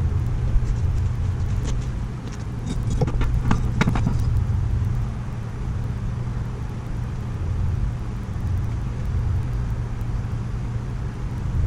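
Propane burner running under a cast iron disco wok, a steady low roar, with a few faint clinks about three to four seconds in.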